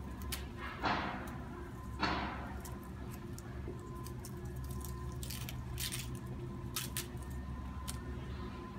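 A potted bromeliad being handled: two short rustles about a second apart, then a few light clicks, over a steady low hum.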